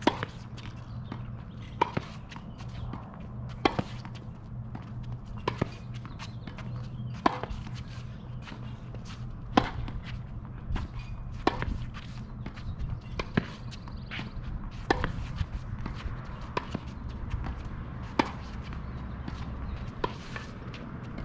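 Tennis balls struck by rackets during a rally: sharp pops about every two seconds over a steady low hum.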